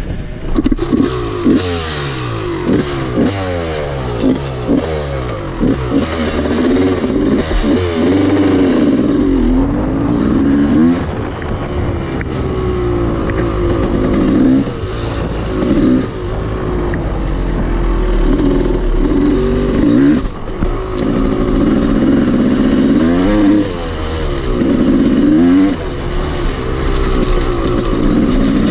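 Dirt bike engine heard close up from the rider's position as the bike is ridden off. Short throttle blips at first, then the engine note rises and falls again and again as the throttle is worked.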